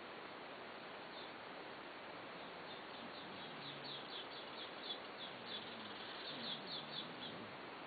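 Steady background hiss with a quick run of short high chirps, about three a second, starting about a third of the way in and stopping near the end, over faint low wavering tones.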